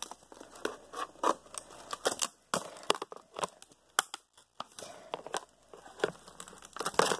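Plastic laptop casing and parts being pulled and handled: irregular clicks, cracks and rustling.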